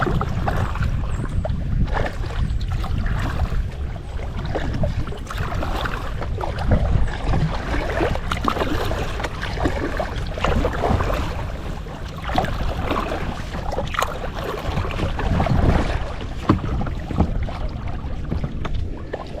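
Kayak paddle dipping and splashing in lake water in irregular strokes, with wind rumbling on the microphone.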